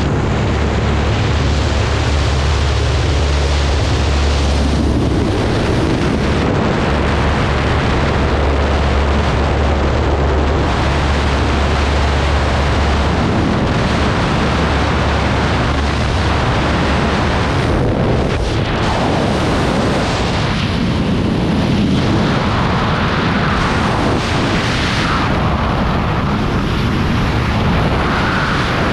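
Propeller engine of a light plane droning with wind rushing through the open door. About halfway through the engine tones fall away and only the loud rush of freefall wind over the microphone remains.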